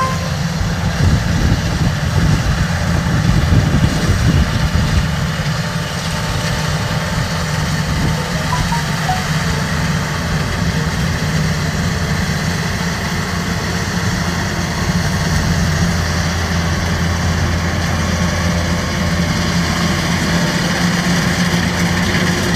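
Kubota DC-93 combine harvester running steadily while it works, a continuous low engine hum with the clatter and hiss of the machinery over it.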